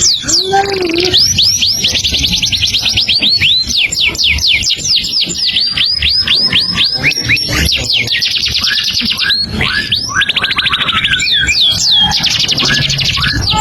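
A songbird singing without pause: long runs of quick whistled notes, each sliding sharply down in pitch, alternating with fast buzzy trills.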